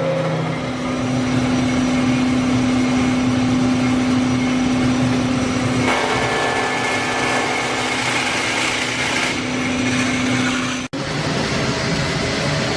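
Kotec Newrun 10DX CNC H-beam drilling line running with a steady machine hum. About six seconds in, a harsher, higher noise joins for roughly three seconds. Near the end the sound drops out for an instant.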